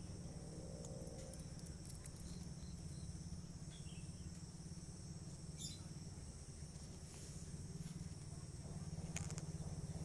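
Steady high insect chorus, typical of crickets, with a low rumble underneath that grows louder near the end, and a few faint short chirps.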